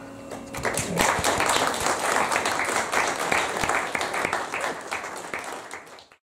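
Audience applauding: many hands clapping, starting about half a second in as the last held keyboard note dies away, thinning out and then cut off abruptly near the end.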